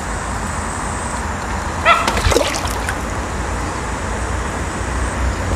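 Water splashing and trickling as a hooked crucian carp is brought to a landing net at the pond's surface, with a brief louder splash about two seconds in, over steady background noise.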